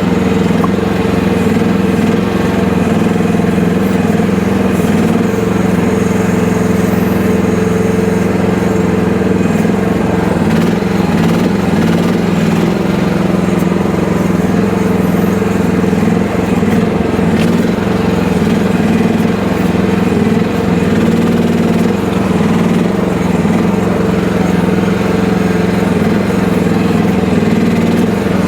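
FF12 mini excavator's engine running steadily at a constant speed.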